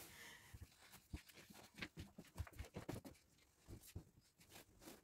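Faint rustling and soft scattered taps of bed linen being handled while a bed is made: the sheet tucked in and a bedspread gathered up. Otherwise near silence.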